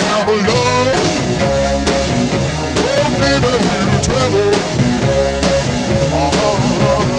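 Background rock music with electric guitar playing a bending melody over drums.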